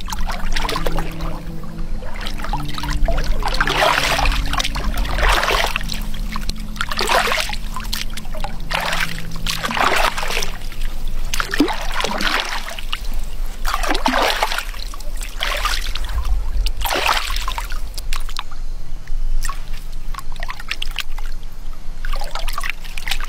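Lake water splashing and trickling as someone standing in it scoops and stirs it with her hands. The splashes come irregularly, about one every second or so.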